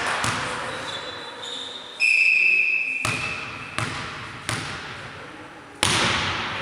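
Referee's whistle blows one steady note for about a second and a half, signalling the serve; a volleyball is bounced on the hall floor three times, then struck hard by hand on the serve near the end, each hit echoing in the hall.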